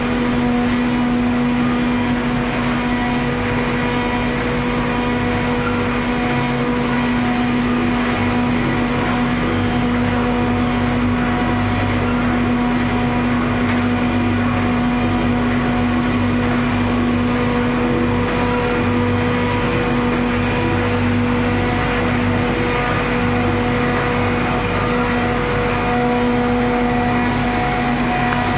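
Single facer corrugated paperboard production line running: a steady machine hum with a constant droning tone.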